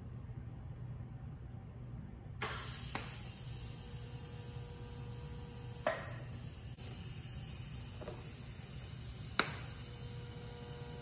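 TIG welder tack-welding a stainless steel exhaust header: from about two and a half seconds in, a steady hiss of the arc with a faint electrical hum, broken by three sharp clicks.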